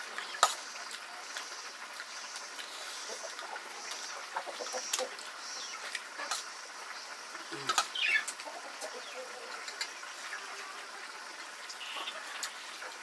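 Metal spoon clinking and scraping on a steel plate while eating rice pudding, as scattered sharp clicks, the loudest about half a second in.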